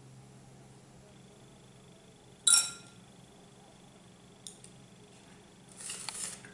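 A metal spoon strikes a glass mixing bowl once with a sharp clink that rings briefly. Near the end there is a short rustle with light clicks as bread rounds are shifted on a paper plate, over a faint steady hum.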